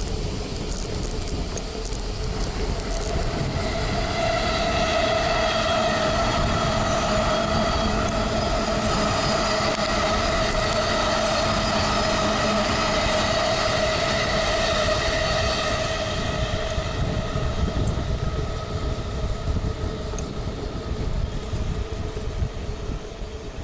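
A train passing close by gives a steady, high whine that swells in, holds for about ten seconds and fades away. Under it is a constant low rumble of wind and road noise on the bicycle-mounted camera.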